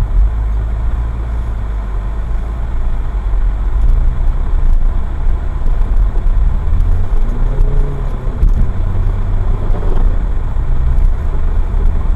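Car driving, a loud low rumble of engine and road, with the engine pitch rising and falling about two-thirds of the way through.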